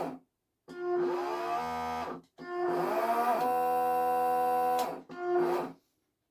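Small electric propeller motors of a remote-control bait boat whirring in short bursts, each one rising in pitch as it spins up and then holding a steady whine before stopping abruptly. There are three bursts, the last one brief.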